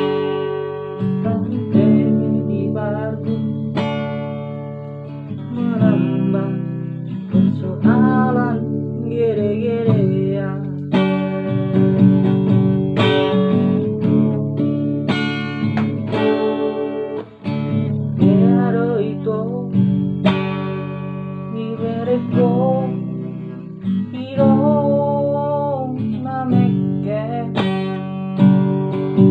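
Acoustic guitar strummed in a steady run of chords, with a voice singing a wavering melody over it at times.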